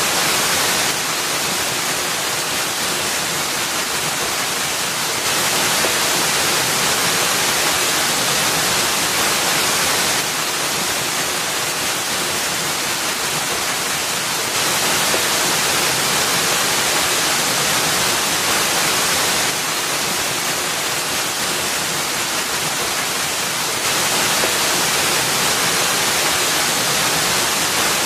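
Waterfall: a steady rush of falling water with no distinct splashes or tones. Its loudness steps up and down slightly every four to five seconds.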